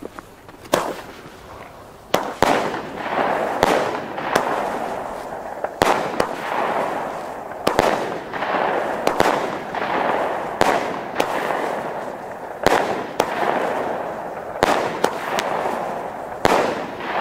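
Small consumer fireworks battery (the 'Greta Thunfisch' shot cake) firing shot after shot. Sharp bangs come roughly once a second, starting about a second in, over a continuous hissing crackle.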